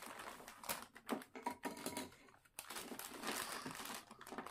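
Faint clicking and rustling of plastic packaging and containers being handled, with a brief quiet pause about halfway through.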